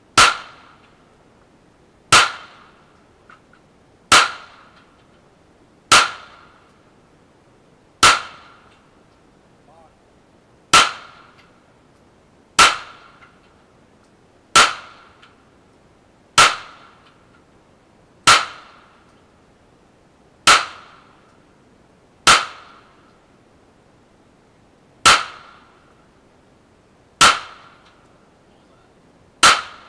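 Canik TP9 9mm semi-automatic pistol fired in slow, steady single shots: fifteen loud, sharp reports spaced about two seconds apart, each ringing off briefly.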